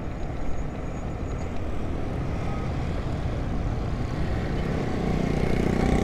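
Steady rush of road and traffic noise while riding a motorcycle through traffic. Near the end a motorcycle engine close by grows louder.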